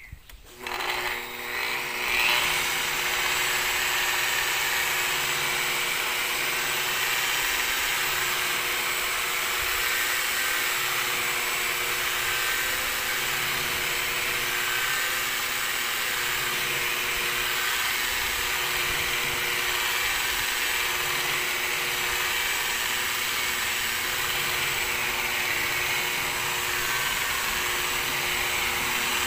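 Corded rotary car polisher with a foam pad starting up about half a second in, then running steadily at a low speed setting (2–3) while it buffs rubbing compound into car paint.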